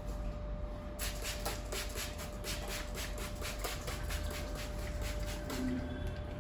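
Rapid, evenly spaced hand strikes of a head massage, about four a second, that die away a little past halfway, over a steady faint hum.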